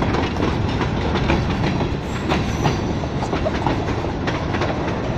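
Freight train cars rolling past at close range: a steady rumble with irregular sharp clacks of the wheels over the rail joints.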